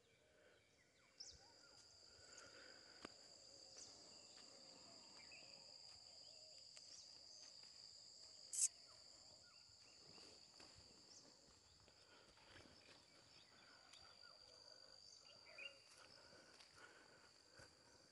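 Faint, steady, high-pitched insect chirring held at one pitch throughout, with soft rustling underneath. A single brief sharp high sound stands out about halfway through.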